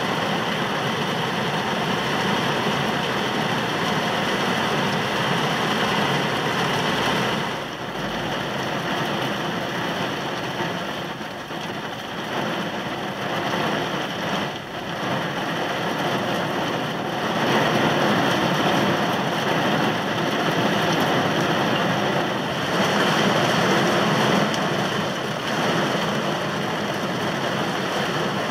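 Heavy downpour falling on a car's roof and glass, heard from inside the cabin as a dense, steady hiss. It eases briefly a few times and comes back heavier in the second half.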